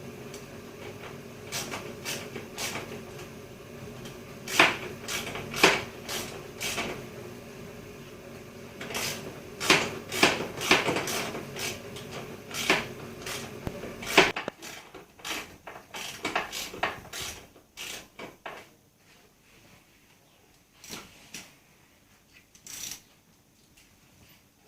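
Irregular clicks and knocks of a socket ratchet and parts being handled while bolting the bodywork onto a mini racing bike. A steady background hum cuts out about halfway through, leaving scattered clicks.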